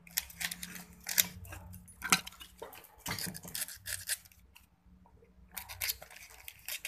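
Irregular clicks, snips and scraping from pliers working the copper winding wire on an electric motor armature during rewinding, with a quieter pause about halfway through.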